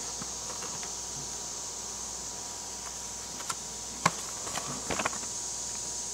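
A few light clicks and taps, about three to five seconds in, from a blister-packed toy on its cardboard card being handled and turned over, over a steady background hiss.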